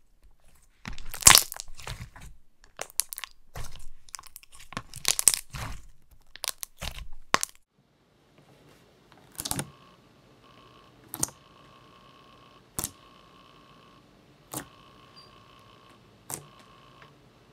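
Slime being squished and stretched by hand, giving a run of crackling bubble pops for the first several seconds. Then fingers pressing into it give single sharp pops, five in all about every second and a half to two seconds, over a faint steady hum.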